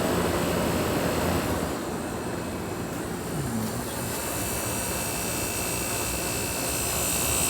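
Vintage General Electric Superthrust room air conditioner running: a steady rush of air from its fan over a low hum. The rush drops a little about two seconds in and grows louder again near the end.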